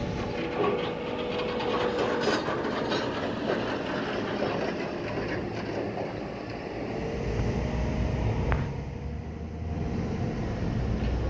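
Steady mechanical rumble with scattered clatter and faint squealing tones: heavy machinery and vehicles working around a large construction site.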